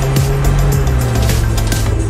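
Background music with a steady low bass note and regular high ticks.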